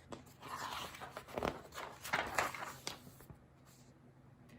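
Rustling and soft knocks of a picture book being handled, for about three seconds, then quiet room tone.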